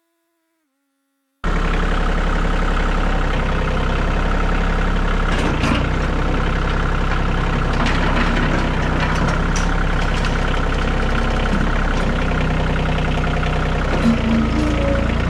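Tractor engine running steadily at a constant pitch, with a few brief rattles. It cuts in abruptly about a second and a half in, after near silence.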